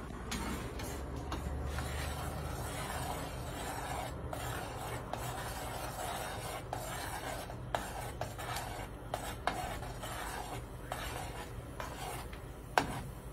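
Metal spoon stirring milk in an enamel saucepan as semolina is poured in, a steady scraping swish with a few sharp clinks of the spoon against the pan, the loudest near the end.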